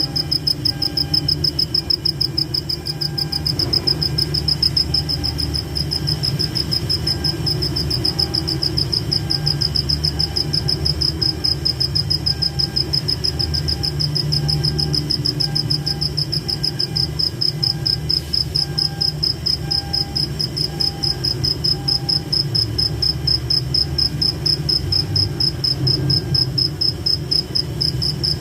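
Cricket chirping in a steady, unbroken run of rapid, even pulses on one high pitch, with a fainter lower call coming and going beneath it and a low steady background hum.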